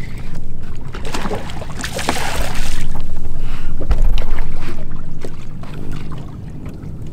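Water splashing beside a fishing boat as a hooked smallmouth bass is fought to the side for a hand landing, with wind buffeting the microphone. A brief rushing splash comes about two seconds in and a low wind thump about four seconds in.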